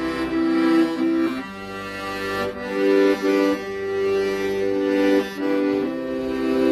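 Accordion playing a slow, legato melody over held chords, each note sustained for about a second before moving to the next.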